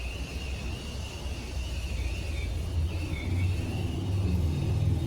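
Low motor-vehicle rumble that grows louder about three seconds in, with a faint wavering high tone above it.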